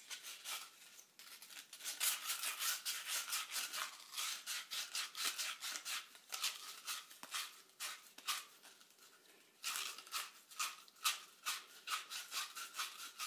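Sandpaper rubbing on small copper pipe as the pipe is spun back and forth inside the wrapped paper, quick scratchy strokes about four or five a second with a short pause midway. The pipe's surface is being cleaned bright.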